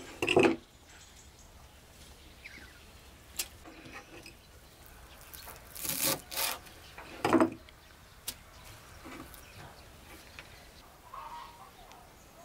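A kitchen knife chopping a bunch of fresh dill on a wooden cutting board: a few sharp chops with quiet spells between them, the loudest just after the start and a cluster around six to seven seconds in.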